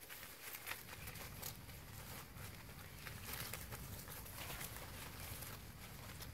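Dry leaf litter rustling and crunching in quick, irregular crackles as things move over the forest floor, over a low steady rumble.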